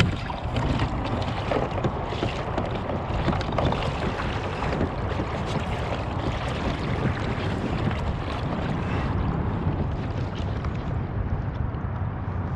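Wind buffeting the microphone over water sloshing against a kayak's plastic hull, a steady rushing noise with faint scattered ticks.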